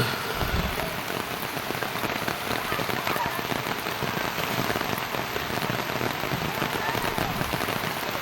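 Steady rain falling, a dense continuous patter.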